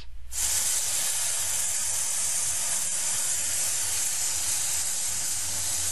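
Propane vapor hissing steadily out of the open 20% outage gauge (fixed liquid-level bleeder) on a forklift's propane tank during filling. This is excess vapor venting, with no liquid yet, so the tank is not yet full. The hiss starts abruptly a moment in and holds even.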